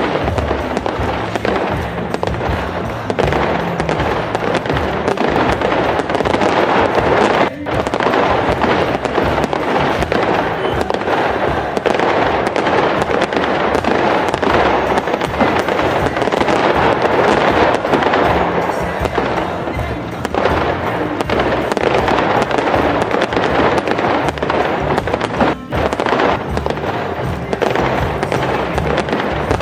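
Fireworks bursting and crackling almost without pause, over background music. The crackle drops out briefly twice, once about a quarter of the way through and once near the end.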